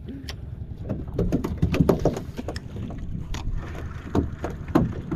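Water lapping and knocking against the hull of a small open boat, with irregular short knocks and wind on the microphone.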